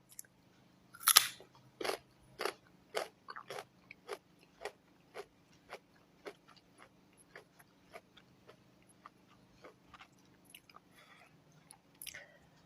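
A person bites into a raw carrot with one loud crunch about a second in. They then chew it with regular crunches about twice a second, which grow fainter as it is chewed down.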